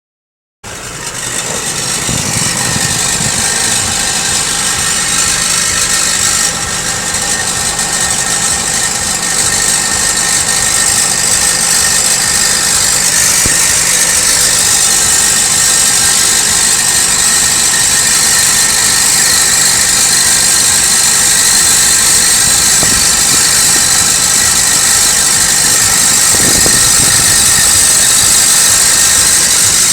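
Nissan Serena C25 running steadily at idle with a rattling noise from the exhaust, the sign of a fault in the exhaust's centre pipe assembly.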